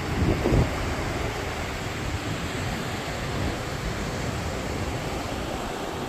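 Steady rush of ocean surf mixed with wind buffeting the microphone, with a brief louder gust about half a second in.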